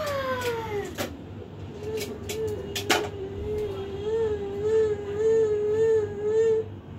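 A sustained mid-pitched tone with a slow, regular waver in pitch, held for about five seconds as the listening cue in a children's conditioned-response hearing exercise. It is preceded by a short falling glide, and a few sharp clicks come in the first three seconds.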